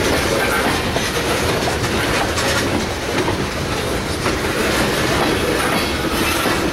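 Freight train cars rolling past on the rails: a steady, loud rumble of wheels on track with repeated clicks as the wheels pass over rail joints.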